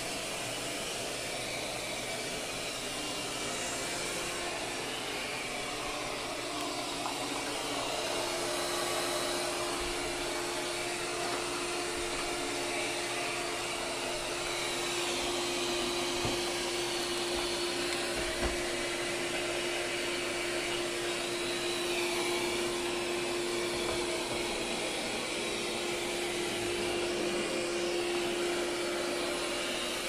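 Lydsto W2 robot vacuum cleaning across bath rugs and tile floor: a steady whirring of its suction fan and brushes with a constant humming tone that grows stronger a few seconds in.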